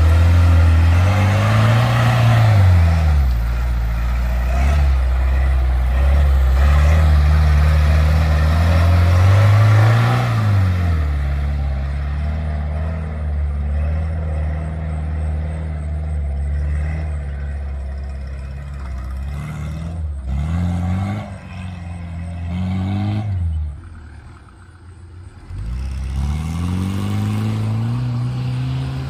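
Mahindra CJ3B jeep engine running under load as the jeep is driven, its pitch climbing and falling back several times as it is revved and shifted. Near the end the engine sound drops away for a second or two, then picks up again.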